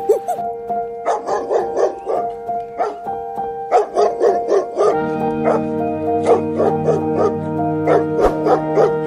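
A dog barking again and again in quick succession, starting about a second in, over background music with sustained notes; a deeper drone joins the music about halfway through.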